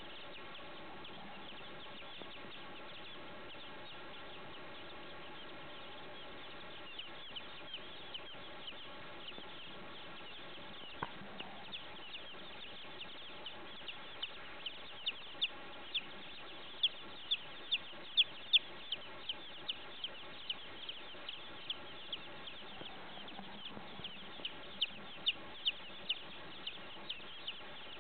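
A brooder of baby chicks peeping: a constant chorus of short, high chirps from many chicks. From about seven seconds in, louder single peeps from nearby chicks stand out, loudest in the middle and again near the end.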